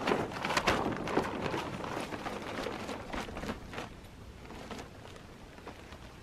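Crinkling and rustling of a ShelterLogic tarp tent's fabric door as it is rolled up around its bottom pole and lifted overhead, in quick irregular crackles that thin out and get quieter over the last two seconds.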